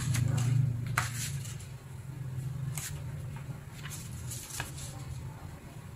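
Sheets of paper rustling and crinkling as they are handled, with sharp crinkles about one, three and four and a half seconds in, over a low steady hum.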